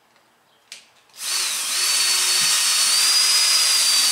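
Power drill boring a 3/16-inch pilot hole up into a garage ceiling joist: a click, then about a second in the drill starts and runs steadily with a high motor whine over the cutting noise.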